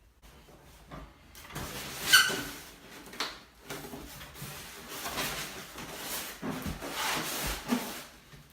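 Packaging being handled during an unboxing: rustling and scraping with scattered knocks, the loudest a sharp knock about two seconds in.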